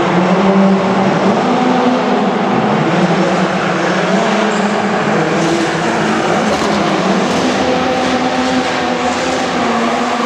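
Ford Fiesta RS WRC rally car's turbocharged four-cylinder engine revving hard while drifting, its pitch rising and falling as the throttle is worked.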